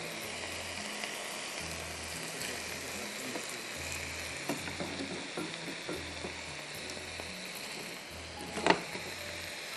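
Marinated chicken breasts sizzling in a hot grill pan, with light clicks of tongs against the pan midway as the pieces are moved, and one sharp knock near the end.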